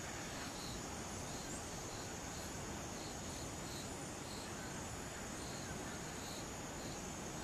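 Tropical forest insects: a steady high-pitched drone, with a softer chirp repeating about once a second, over an even background hiss.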